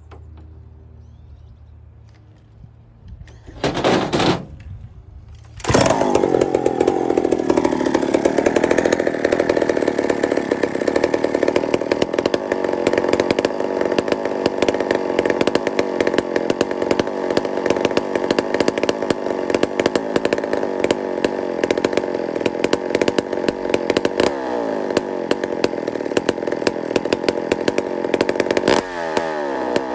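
McCulloch 797 big-bore two-stroke chainsaw being started: a short loud burst about four seconds in, then the engine catches just before six seconds and keeps running. Its speed settles over the first few seconds, then holds steady, wavering twice near the end.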